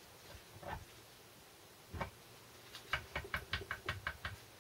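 Light metallic clicks from the selector rod and fork of a Land Rover Series 3 gearbox being worked by hand. There are a couple of single clicks, then a quick run of about ten clicks, roughly seven a second, near the end.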